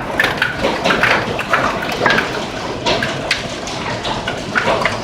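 Heavy hail pelting down: a dense, irregular clatter of hailstones striking hard surfaces over a steady rush of falling water.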